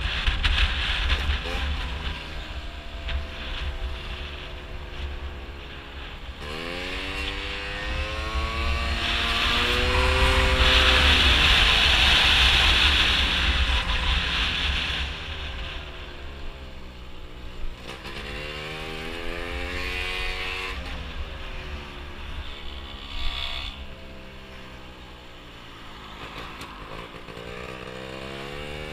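A Gilera Runner scooter's two-stroke engine, bored out with a 172 cc Malossi kit, under way, accelerating several times with its pitch rising and falling away between throttle openings. It is loudest about a third of the way in, with a steady low rumble underneath.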